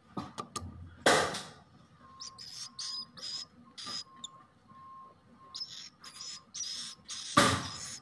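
Swiftlet chicks in the nest giving short, high, raspy chirps, one or two a second. Two loud rustles from a hand handling the nest come about a second in and near the end.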